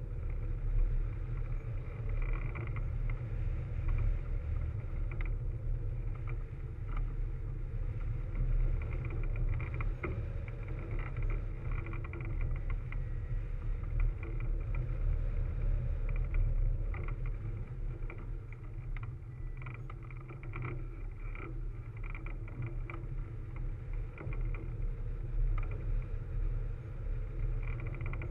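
Wind rushing over a camera mounted on a hang glider in flight: a steady low rumble with gusty swells, and faint steady tones above it.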